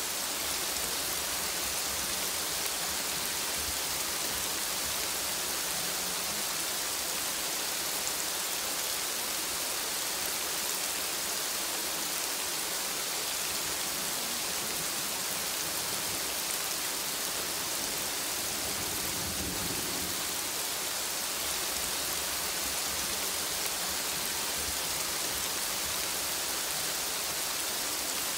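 Steady, even hiss of rain falling, with a brief low rumble about two-thirds of the way through.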